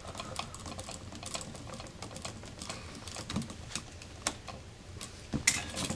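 Small irregular clicks and scrapes of a screwdriver tightening a terminal screw on a duplex receptacle, with a sharper click near the end.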